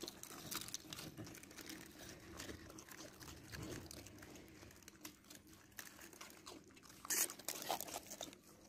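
Dogs crunching and chewing dry biscuits, a run of small crackling crunches, with a louder crackle about seven seconds in.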